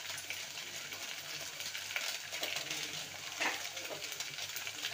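Chopped onions frying in oil in a steel pressure-cooker pot, sizzling steadily, with a few short crinkles and clicks from a plastic spice packet being shaken out by hand.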